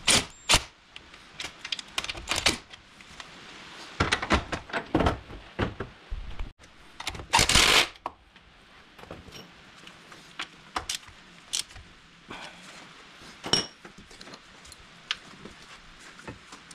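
Sharp metal clicks and clinks of a bolt and tools being handled at the transmission mount, with a cordless ratchet running for about a second near the middle as it drives the mount bolt.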